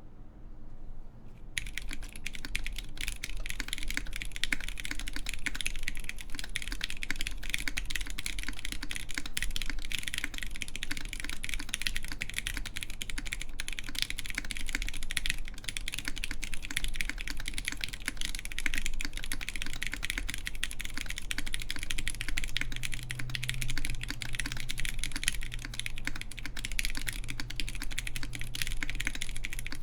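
Steady, fast typing on a Gok 7V mechanical keyboard with lubed Zealio v2 tactile switches in a full aluminium plate, under CRP Cherry-profile keycaps: a dense run of key clacks that starts about a second and a half in.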